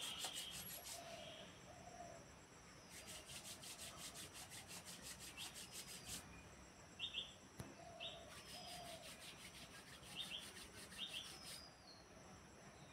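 Faint birds chirping in the background: short high chirps, a few lower brief calls, and two stretches of a fast, even, high-pitched pulsing trill, over quiet room tone.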